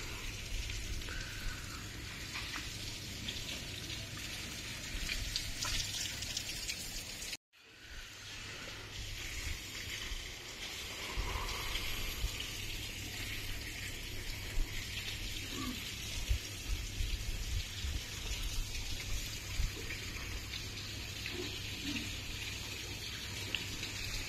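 Swimming-pool water splashing and running in a steady hiss, with a low hum underneath. The sound cuts out abruptly for a moment about seven seconds in, then carries on.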